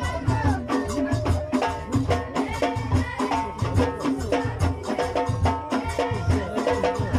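Amazigh ahwash folk music: a steady frame-drum beat, about one stroke every half second or so, with a melody moving in steps above it.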